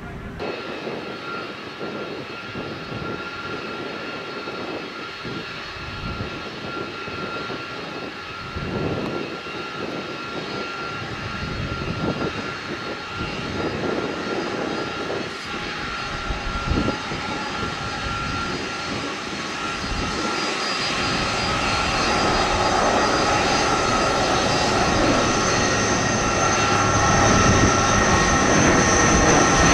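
Jet engines of a UPS Airbus A300-600 freighter at taxi power: a steady jet whine over a broad rumble, growing gradually louder toward the end.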